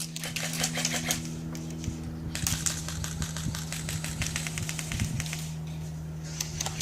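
Airsoft guns firing rapid bursts of clicks: one burst in the first second and a half, a longer one from about two and a half seconds in, and another starting near the end. A steady low hum runs under them.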